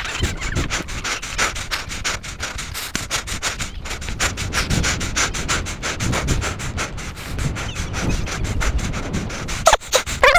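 Clothing scraping and rustling against the microphone of a body-worn camera, over a low wind rumble, as the wearer walks on dry, loose dirt.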